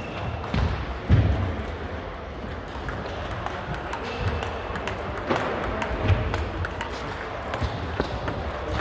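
Table tennis balls clicking off bats and tables in a rally, with more clicks from neighbouring tables and a few low thumps, the loudest about a second in, all echoing in a large hall.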